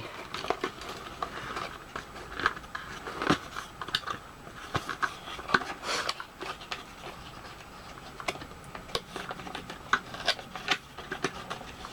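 Hands untwisting a wire twist tie and working a small toy helicopter loose from its packaging: scattered small clicks, scrapes and rustles.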